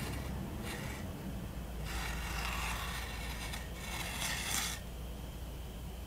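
Scratching sounds from an unseen source, rasping against a surface in three bouts: a short one near the start, a longer one lasting over a second, and a third shortly after.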